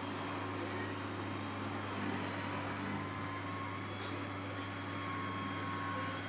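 Robot vacuum cleaner running with a steady motor hum.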